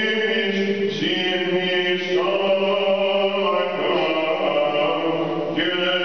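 Byzantine chant sung by a cantor: long held notes that step to a new pitch every one to two seconds.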